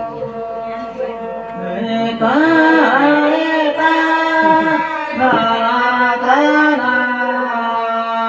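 Devotional folk singing with a bowed folk fiddle: a steady droning string tone throughout, and a woman's voice singing a loud, wavering held phrase from about two seconds in until near the end.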